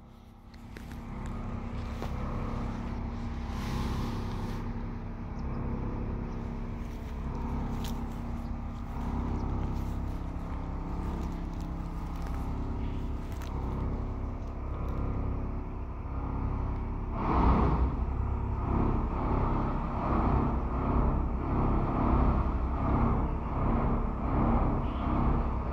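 Steady industrial machinery hum with several held tones and a deep rumble from a plastics-processing plant's hall, which the uploader attributes to shredders and granulators. About two thirds of the way in it turns louder and rougher, with a pulsing grind.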